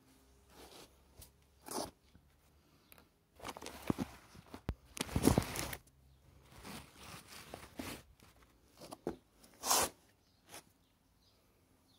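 Irregular rustling and scraping handling noises with a few short clicks, in bursts that are loudest a little past five seconds in and again near ten seconds.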